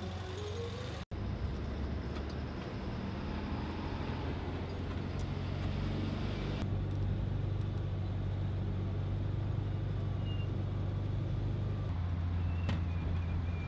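Vehicle driving, a steady low rumble of engine and road noise, broken by a brief dropout about a second in.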